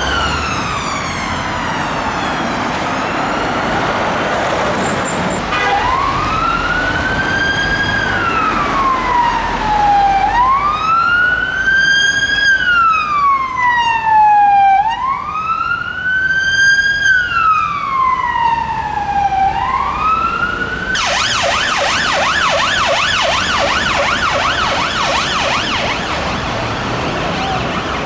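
Emergency-vehicle sirens in succession: an ambulance siren falling away, then a Metropolitan Police BMW 218d's siren in a slow wail rising and falling about every four to five seconds. About 21 seconds in it changes to a Yorkshire Ambulance Service Fiat Ducato's siren in a fast yelp.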